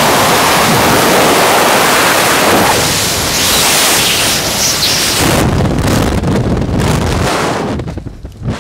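Freefall airflow buffeting the camera microphone: a loud, steady wind rush that thins out and falls away near the end.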